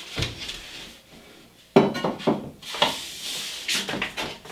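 Paper drywall tape being pulled and torn off against the edge of a metal taping knife, with rustling and scraping of the tape and knife. There is a short rustle at the start and a sharper, louder run of handling noise from about two seconds in.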